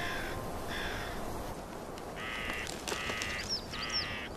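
A crow cawing repeatedly in harsh calls about half a second long; the last three, from about two seconds in, are louder.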